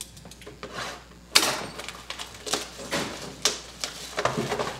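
Shrink wrap on a trading-card hobby box being cut with scissors and torn off: a sharp snap about a second and a half in, then several short crinkling rustles of the plastic wrap.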